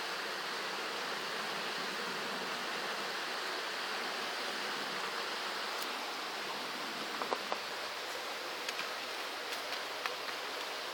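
Steady rush of a creek running close by, with a small wood fire of twigs and bark giving a few sharp crackles and pops from about seven seconds in.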